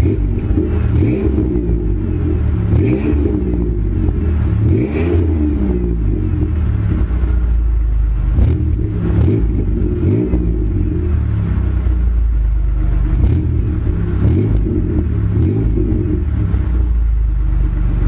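Chevrolet Impala 3.8 L V6 with a resonator delete and dual Flowmaster 80 mufflers, heard at the tailpipe, idling and revved in several short blips, each rising and falling back to idle.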